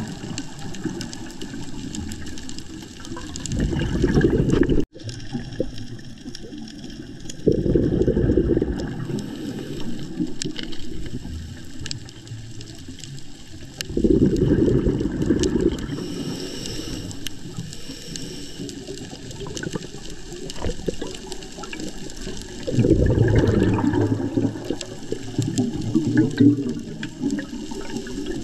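Scuba diver breathing through a regulator underwater: four loud bubbling rushes of exhaled air several seconds apart, with a quieter steady hiss between them.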